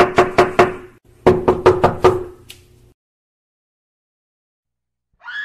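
Knocking on a door, a sound effect: two quick runs of knocks, about five a second, with a short pause between them and a hollow ring under each run.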